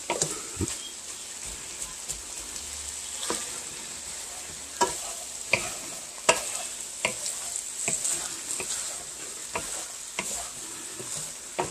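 Shredded cabbage, carrots, celery and chicken sizzling as they stir-fry in a frying pan, with irregular scrapes and knocks of a wooden spatula against the pan as it stirs.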